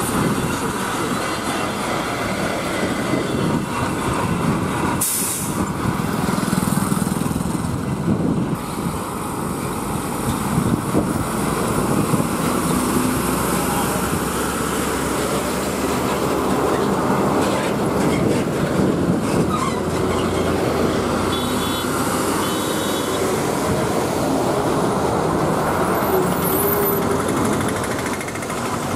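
Heavily loaded diesel lorries driving past one after another, with steady engine rumble and tyre noise on the road. The sound changes abruptly about 5 and 8 seconds in.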